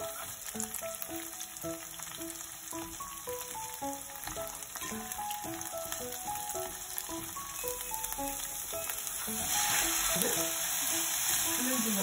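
Egg and shrimp sizzling in oil in a pan while being stirred with chopsticks. The sizzle grows louder about three-quarters of the way through. Light background music with short plucked notes plays underneath.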